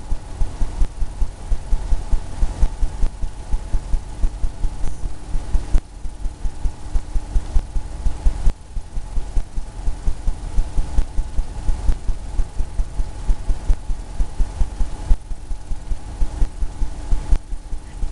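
Rapid, rhythmic dabbing of a paintbrush against the canvas, about four dull thumps a second with a few short pauses, while the palm trees are painted. A steady low hum runs underneath.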